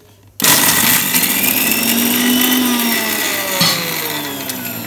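Sujata mixer grinder's motor spinning the small stainless-steel jar to grind dried bread into breadcrumbs. It starts abruptly about half a second in and runs loud; after a click near the end its whine falls away as the motor winds down.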